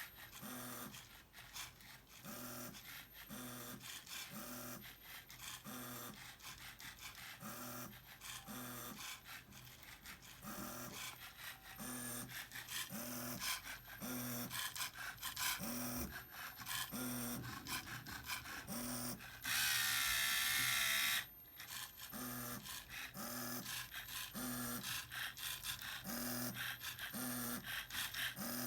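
Small electric motors of a Lego Mindstorms printer whirring in short moves repeated about once a second, with a louder continuous whir lasting about two seconds roughly two-thirds of the way through.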